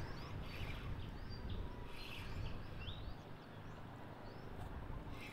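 Steady wind and water noise on an open boat, with a few short, high bird chirps scattered through it.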